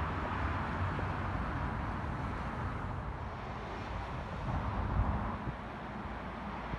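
Outdoor background noise: a steady hum of road traffic, with wind buffeting the microphone in low rumbles now and then.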